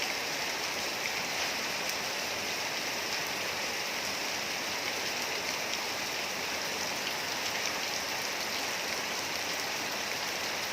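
Steady rain falling, a continuous even hiss with faint scattered drop patter.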